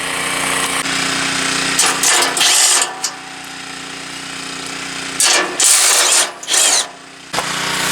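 Handheld power drill or driver running in three short bursts, the last rising in pitch, while bolts are backed out of a riding mower's rear fenders. A steady hum runs underneath.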